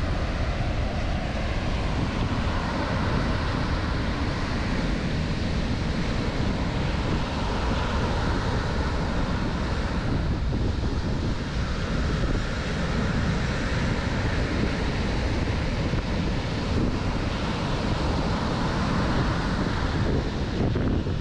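Surf breaking offshore and washing up a sandy beach in a continuous, steady rush, with wind buffeting the microphone and adding a deep rumble.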